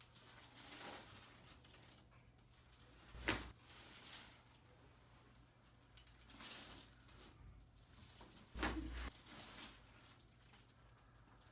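Quiet rustling and shifting of a body and fabric on a chiropractic treatment table, with one sharp click a little over three seconds in and a heavier thump at about eight and a half seconds.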